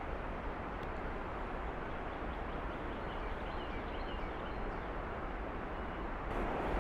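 Steady outdoor background rush in woodland, with a few faint bird chirps a few seconds in.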